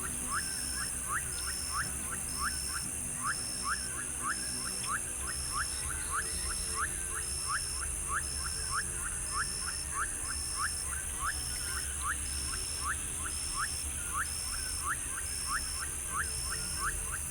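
Night forest ambience of insects and calling creatures: a steady high-pitched insect drone, a high chirp repeating evenly a little more than once a second, and quick chirps two or three times a second, over a low steady rumble.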